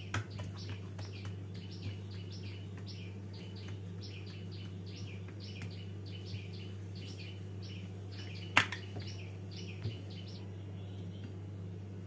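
A small bird chirping over and over, about three chirps a second, over a steady low hum; the chirping stops about ten seconds in. A sharp click comes near the start, and a louder one about eight and a half seconds in.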